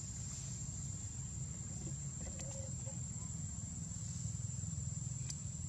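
Steady, high-pitched insect drone running without a break over a low steady rumble, with a couple of faint clicks.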